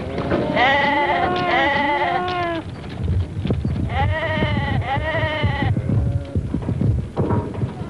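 A flock of sheep bleating, several overlapping calls in two bouts, the first about half a second in and the second around four seconds in.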